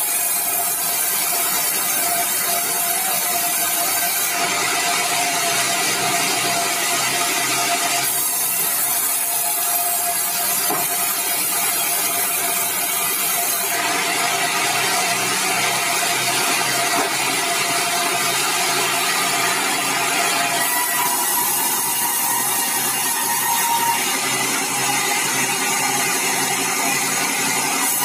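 Sawmill band saw running and sawing bengkirai timber: a steady mechanical whine and rasp, with the high hiss of the cut growing louder in long stretches, about 4 s in and again from about 14 s.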